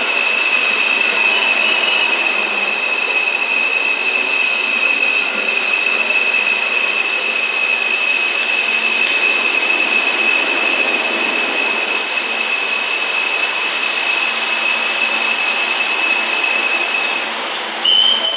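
R160 subway train rolling into the station with a steady, high-pitched squeal over the rumble of the cars. The squeal cuts off shortly before the end, and a brief louder noise follows as the train comes to rest.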